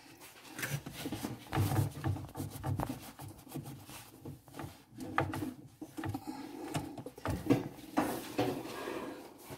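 Irregular knocks, bumps and rubbing from things being handled inside a wooden cupboard.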